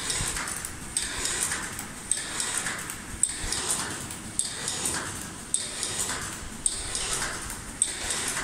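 LDT-YFFT-2000 automatic express envelope sealing and labeling machine running its cycle: a sharp clack a little more than once a second, with a hiss in between.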